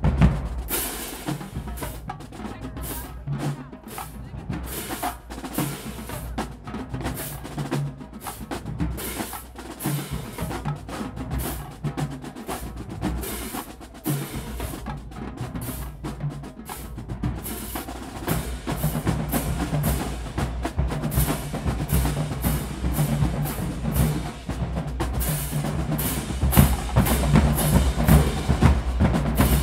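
Marching drumline playing a cadence: snare drums, bass drums and crash cymbals struck in a dense, steady rhythm, growing louder near the end.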